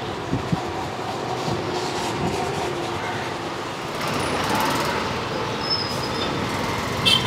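Steady street traffic noise, the rumble of passing motor vehicles, growing a little louder about four seconds in. A brief high tone sounds near six seconds, and a short clatter comes at the end.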